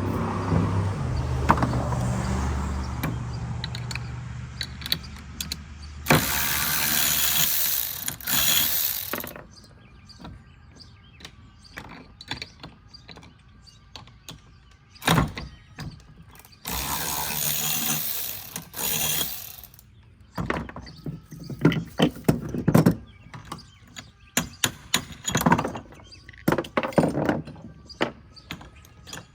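Hand tools at work on caster wheels: clicking and ratcheting, clinks and knocks, with two longer stretches of loud hissing noise. A low hum runs through the first several seconds.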